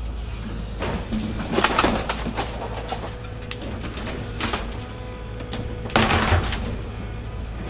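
Excavator engine running steadily, with wood and branches cracking and snapping as the machine pushes over a tree and demolition debris. The loudest crackling comes in two spells, about one and a half seconds in and again about six seconds in.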